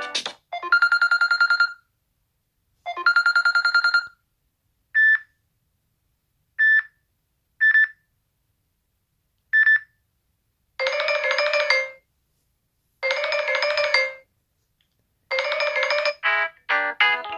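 Samsung Galaxy J7 Pro's loudspeaker playing a run of ringtone snippets with short pauses between them: two high warbling trills, four short single beeps, three buzzy pulses of about a second each, then a quick melody starting near the end.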